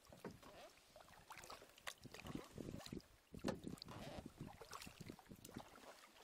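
Faint kayak paddling on a calm river: wooden paddle blades dipping into the water in irregular strokes, with small splashes and drips.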